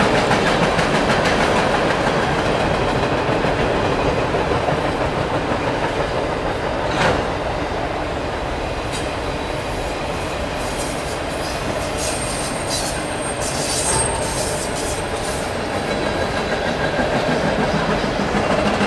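Freight train cars, tank cars and autorack cars, rolling past with a steady rumble and clatter of wheels over the rails. A few short, high-pitched wheel squeals come about two-thirds of the way through.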